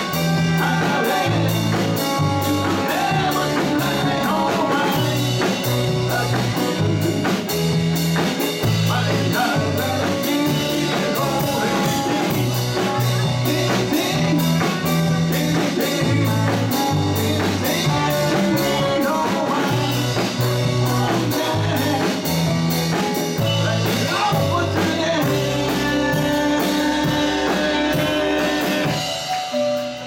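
Live rock band playing a song with electric guitars, bass, drum kit with steady cymbal strokes, congas and keyboards under a lead vocal. The band stops about a second before the end.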